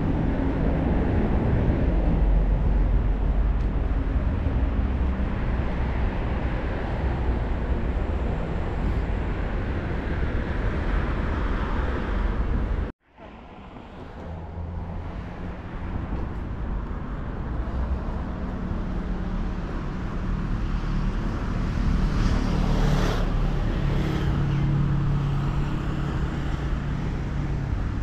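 Street ambience: car traffic with a steady low rumble. The sound cuts out abruptly about halfway through, then returns. Near the end a passing vehicle's engine hum rises over it.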